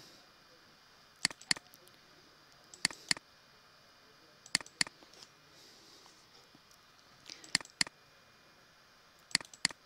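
Computer mouse clicks: sharp clicks, mostly in quick pairs, coming every second or two, five pairs in all, over a faint steady hiss.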